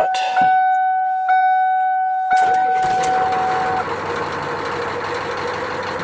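Dashboard warning chime dinging about once a second as the key is turned, then, about two seconds in, the 1994 Ford F350's V8 diesel engine cranks, catches and settles into a steady idle. The chime stops soon after the engine starts. This is the first start on a newly fitted ignition lock cylinder.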